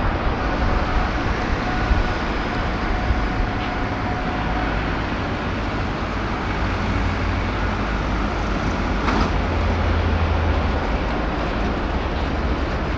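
Steady outdoor urban background noise: a continuous low rumble with a hiss above it, swelling a little about two-thirds of the way through.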